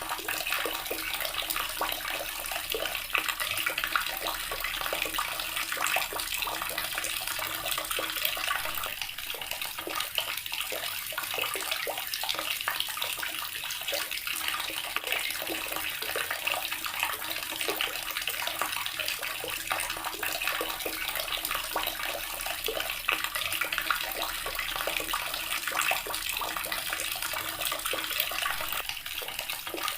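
Water running steadily from a tap and splashing into a basin.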